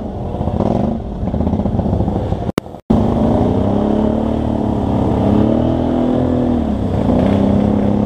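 ATV engine running with the throttle worked on and off, its pitch rising and falling in long swells. The sound drops out for a moment about a third of the way through.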